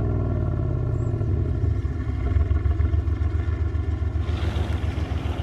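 Mercedes-AMG GT R's twin-turbo V8 running at low revs with a fast, even pulsing burble from the exhaust, the car coming back in off its lap. A broad hiss of noise joins about four seconds in.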